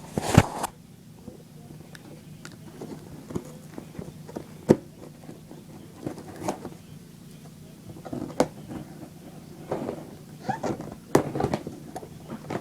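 A knock as the phone camera is set down, then scattered sharp clicks, scrapes and short rustling of a shipping package being opened by hand.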